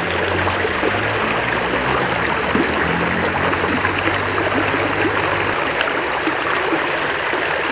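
Shallow river running over rocks and pebbles: a steady rush of flowing water.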